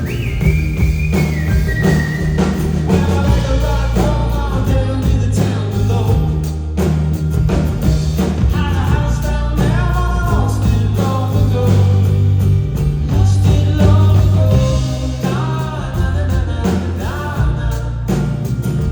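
Live indie rock band playing: steady bass and drums under a melodic lead line that slides between notes.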